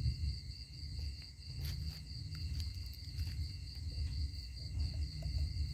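Crickets trilling steadily, several high insect tones at once, over a continuous low rumble.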